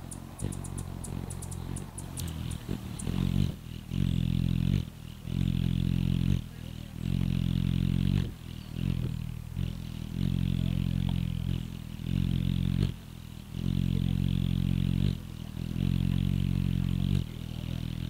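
Hummingbird wings humming close by as it hovers at a nectar feeder. The hum swells and fades in bouts of about a second each as the bird darts in and out.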